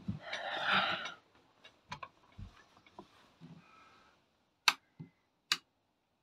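Handling noises as someone moves into a narrowboat's cabin: a brief rustle, then scattered light knocks and clicks, and two sharp clicks less than a second apart near the end.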